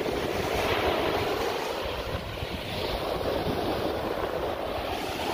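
Sea surf washing and breaking in the shallows, a steady rushing of water, with wind buffeting the microphone.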